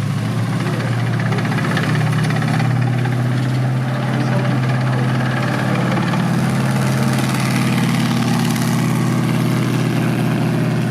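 M4A1 Sherman tank's Continental R975 radial engine running steadily as the tank moves about.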